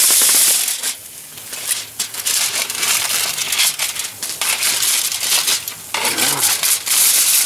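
Aluminium foil crinkling and crumpling as it is pulled back off a foil tray with metal tongs, under a hiss of sizzling that is loudest in the first second.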